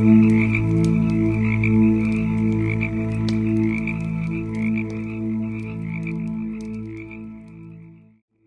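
Campfire crackling, with scattered sharp pops, over a loud steady pulsing low hum with croak-like pulses. All of it fades out near the end into a brief silence.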